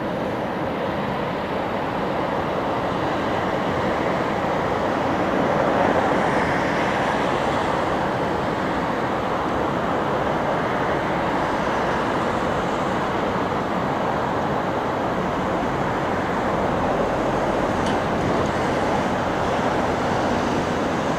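Steady jet engine noise from aircraft on the airfield, swelling slightly about six seconds in.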